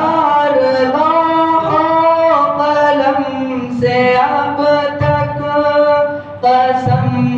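A man singing a naat, an Urdu devotional song, solo into a microphone, drawing out long held notes that bend in pitch. He breaks briefly for breath about six seconds in, then carries on.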